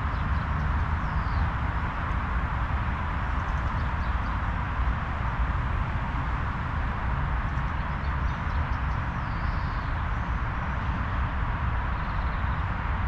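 Steady outdoor ambience with a low rumble, and a few short, falling bird calls about a second in, around the middle and near the end.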